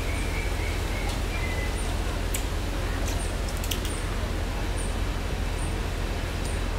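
Marmosets making short, high-pitched chirps, scattered about a second apart, over a steady low rumble and a few faint clicks.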